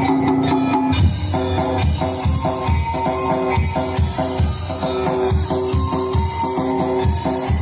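Music with a drum kit and bass on a steady beat, played loud through a sound system being checked; a new section with repeating chords starts about a second in.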